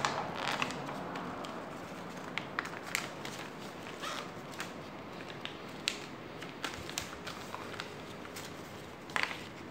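A sheet of stiff paper being folded and creased by hand: irregular crackles, rustles and light taps as the fingers press down the folds, with a louder crackle near the end.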